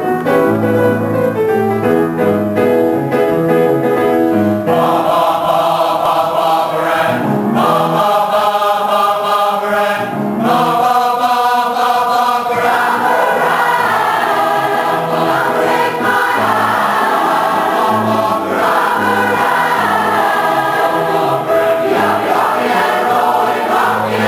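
A large community choir singing together, at first mostly in lower notes; a fuller, higher sound joins about five seconds in and carries on.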